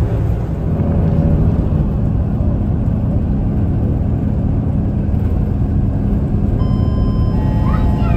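Moving city bus heard from inside the passenger cabin: steady low engine and road rumble. A faint high whine comes in near the end.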